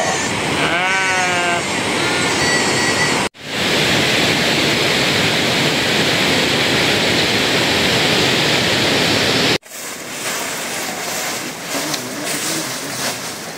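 Sheep bleating several times over a steady rushing noise for the first three seconds or so. After an abrupt cut, a loud, even rushing noise with no calls; after a second cut near ten seconds, a quieter rush.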